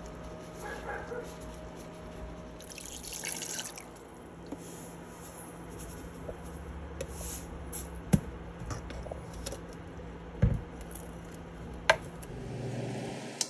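Kitchen handling sounds: liquid dripping and sloshing over a steady low hum, with a brief crinkly rustle about three seconds in and a few sharp knocks in the second half.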